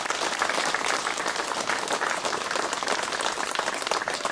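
Crowd applauding with many hands clapping at once, a dense, steady patter.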